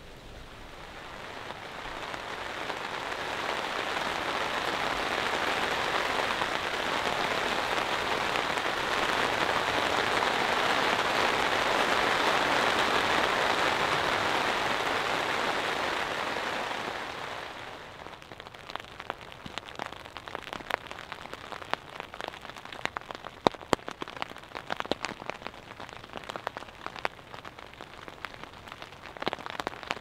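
Rain on a tent: a heavy, steady downpour hiss swells up, holds, and eases off about two-thirds of the way through into separate drops tapping on the fabric.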